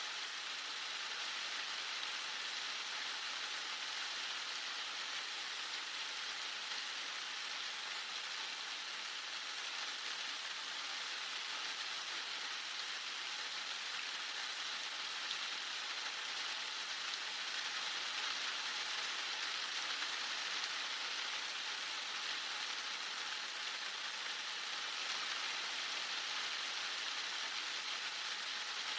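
Heavy rain falling steadily on surfaces, an even, unbroken hiss.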